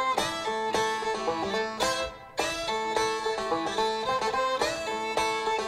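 Bluegrass string band playing an instrumental passage: a fiddle bowing the melody over picked banjo, mandolin and guitar. The music drops away briefly about two seconds in.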